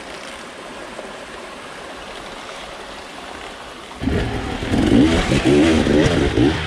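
A steady even rush like running water, then about four seconds in dirt bike engines start revving hard, the pitch rising and falling with the throttle as the bikes climb the trail.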